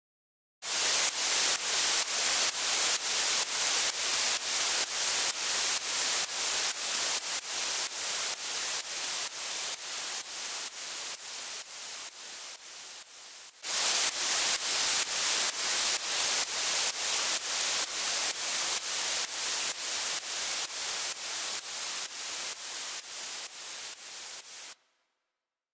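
Side-chained white noise from a synth track, a bright hiss pumping about twice a second in time with the beat to give a rain-like effect. Its level sinks gradually under a volume envelope, jumps back to full about thirteen seconds in, sinks again, and cuts off abruptly near the end.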